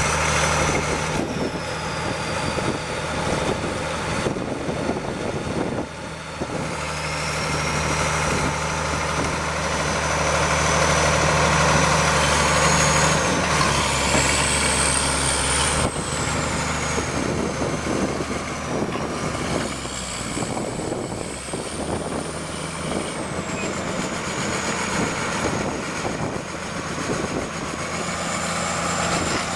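1977 Case Drott 50 excavator's engine running steadily, its note shifting a few times, with a high whine that rises and falls in pitch throughout.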